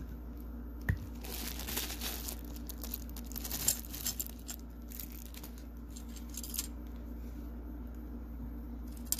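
Clear plastic packaging crinkling and crackling as a vinyl figure is pulled out of it, after a single thump about a second in. The crinkling stops about two-thirds of the way through.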